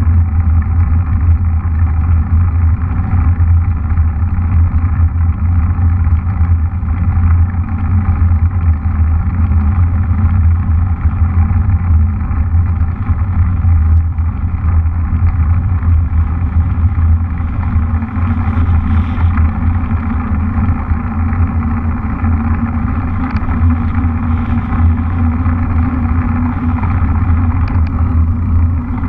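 Steady, muffled wind rumble on the microphone of a camera carried on a mountain bike riding along a paved road.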